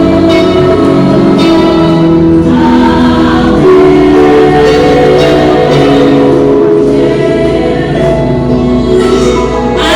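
Christian gospel song: a group of voices singing held, slow-moving notes over a full instrumental backing.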